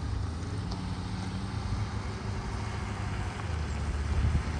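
Engine of a Ford Super Duty pickup carrying a truck camper, running at low speed as the truck rolls along a gravel road, getting louder near the end as it comes closer.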